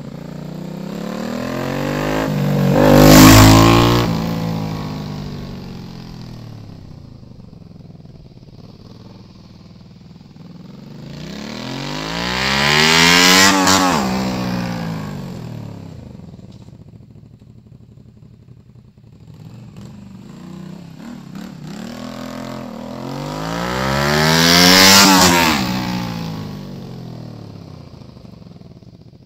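Honda VTZ250's 90-degree V-twin with a Moriwaki Foresight slip-on muffler, revving hard as the motorcycle passes by three times about ten seconds apart. Each pass swells to a loud peak, the engine pitch rising and then falling, and fades away.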